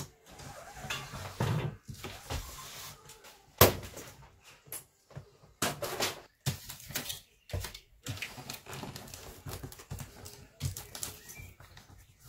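Hand-handling noise of electrical cable being fed along a van's ceiling and worked into the cable clips: irregular rustling and scraping broken by several sharp clicks and knocks, the loudest about three and a half seconds in.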